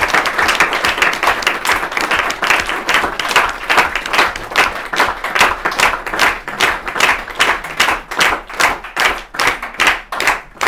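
Applause: dense clapping that, about halfway through, settles into rhythmic clapping in unison, about three to four claps a second.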